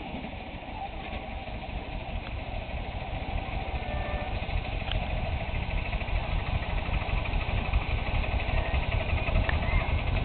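Low, gusty rumble of wind buffeting the microphone, growing steadily louder.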